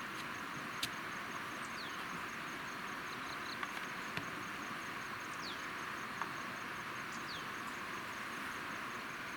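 Steady rushing of a flowing stream, with a few short bird chirps that drop in pitch and a couple of sharp clicks, one about a second in and one past six seconds.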